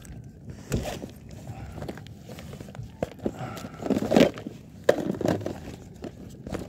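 Irregular knocks and rustling from gear and a plastic bag being handled right against the microphone, loudest about four seconds in.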